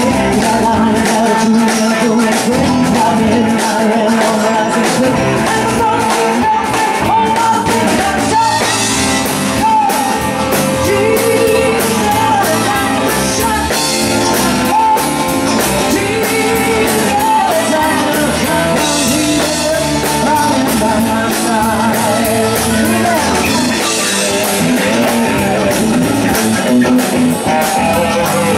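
Live rock band playing steadily: electric guitars, bass, drums and keyboards, with a woman singing lead.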